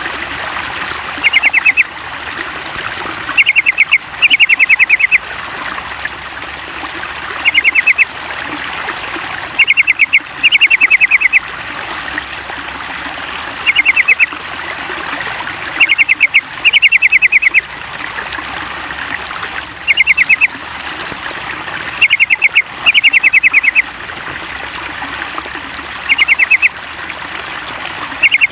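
Yellow-vented bulbul (trucukan) calls played as a lure to get a bulbul singing: short, loud phrases of rapid clipped notes, often two close together, repeating every two to four seconds. Under them runs a steady trickle of water.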